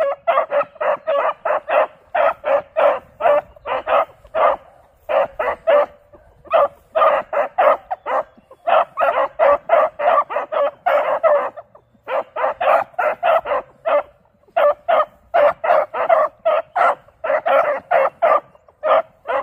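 Beagle pups barking in quick runs of about three or four barks a second, broken by short pauses: hounds giving tongue as they trail a rabbit's scent.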